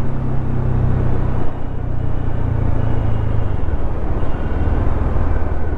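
Bajaj Dominar 400's single-cylinder engine running under way, with road and wind noise; the engine note drops to a lower pitch about three and a half seconds in as the revs fall.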